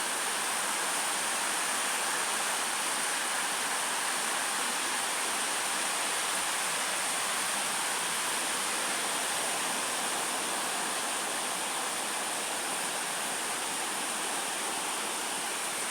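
Heavy rain in a rainy-season storm, a steady, even rush that does not let up.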